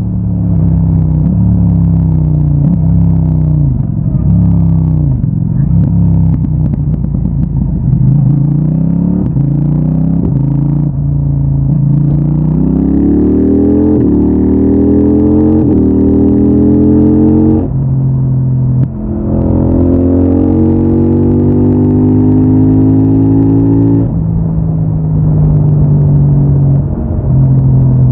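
CFMOTO 800NK Advanced's parallel-twin engine through its stock exhaust, pulling under acceleration. The engine note rises and falls for a while, then climbs steadily, drops sharply at an upshift, climbs again and settles to a steady cruising note near the end.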